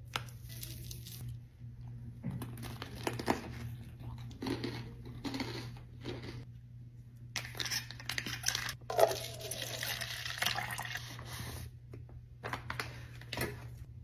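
Close-miked mukbang eating and food handling: irregular bursts of crinkling, tearing and wet, squishy chewing sounds over a steady low hum.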